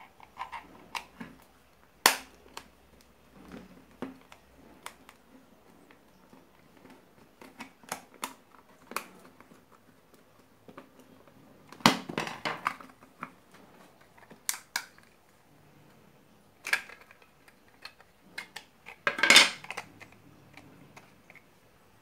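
Plastic case of an AC power adapter being pried open with a flat screwdriver: scattered sharp clicks and snaps as the seam gives. The loudest come about two seconds in, around the middle, and in a burst near the end.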